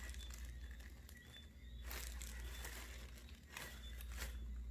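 Faint crinkling and rustling of product packaging being handled, with a few brief sharper rustles.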